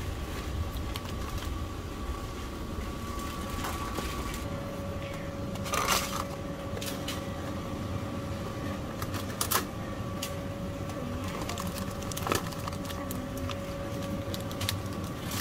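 Supermarket ambience: a steady hum with faint steady tones, as from refrigerated display cases. Plastic food packs crinkle sharply about three times as they are handled.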